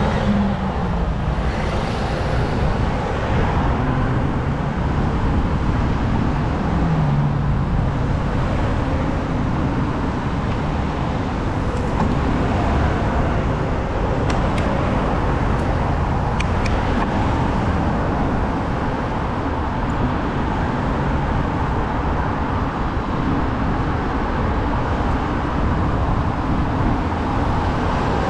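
Steady city street traffic noise heard from a moving bicycle: cars and other road vehicles around it, with a dense low rumble throughout.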